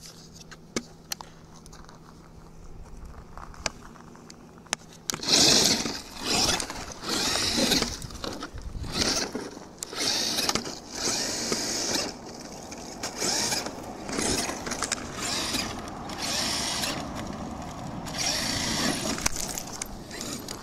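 Brushless electric RC truck driven hard over dirt: after a faint hum and a few clicks, loud bursts of throttle start about five seconds in, roughly one a second, with motor whine and tyres spraying dirt and gravel.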